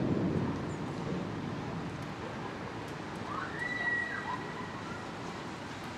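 The tail of a thunder rumble dies away in the first second, leaving a steady hiss of rain and wind from the thunderstorm. A short high whistle-like tone sounds near the middle.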